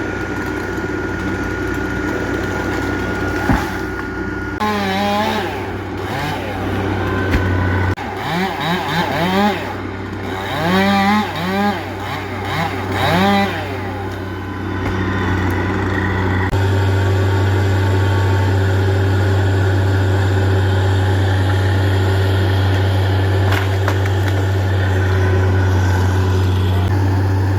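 Two-stroke chainsaw engine revved in a run of short throttle blips, each rising and falling in pitch, over a steady low engine hum. The later part is only the steady hum.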